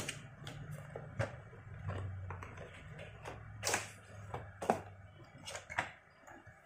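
Cardboard box and plastic packaging being handled: a box flap opened and a plastic tray slid out, giving a series of sharp clicks, taps and scrapes, the loudest about four and five seconds in. A low steady hum runs underneath.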